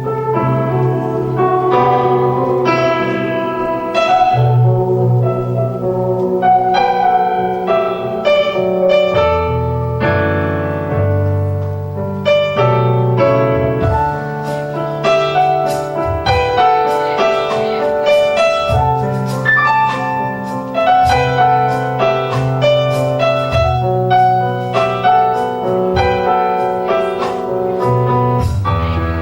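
Piano playing an instrumental passage, with many struck notes and chords over held low bass notes.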